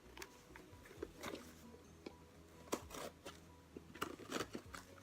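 A small cardboard box being handled and opened: a few short, irregular scratches and taps, with faint background music.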